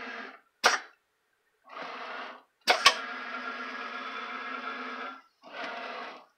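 ProLIGHT CNC machining center running an automatic tool change: the axis motors run in a series of short moves that stop and start, with a steady hum. A sharp mechanical click comes about a second in, and a quick double click near three seconds, as the tool changer handles a tool holder.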